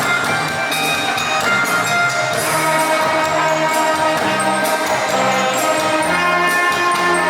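Two saxophones playing a duet in held melodic notes over an accompaniment with a steady bass line and light percussion.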